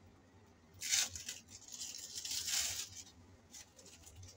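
Packaging being torn and rustled: a sharp rip about a second in, then a crinkling rustle lasting about two seconds.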